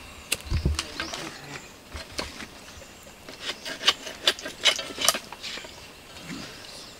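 A lighter clicking again and again as someone tries to light a campfire of damp sticks, the sharp clicks coming thickest between about three and five seconds in, with some rustling of the sticks and paper.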